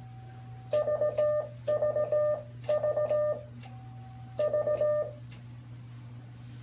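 Morse code sent on a Brown Brothers CTL-A dual key (straight key and keyer), heard as a steady mid-pitched sidetone beep switched rapidly on and off in four quick runs of dits and dahs. A single fainter, slightly higher beep comes between the third and fourth run.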